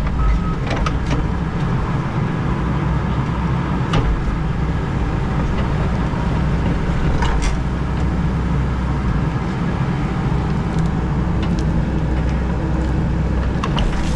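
Hydraulic excavator's diesel engine running steadily under load while it digs a trench, heard from inside the operator's cab, with a few short sharp knocks.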